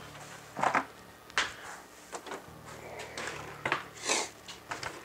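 A handful of brief knocks and clatters as the plastic Traxxas Ultimate Hauler bed and the RC truck chassis are lifted, moved and set down on the work mat.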